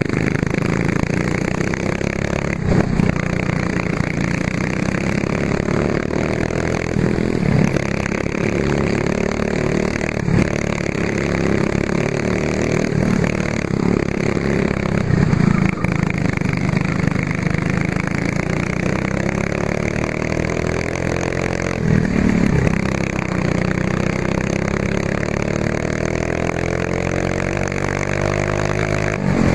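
Racing kart engine heard onboard at racing speed, revving up in long rising sweeps and dropping back several times as the kart laps. A few short knocks sound over the engine.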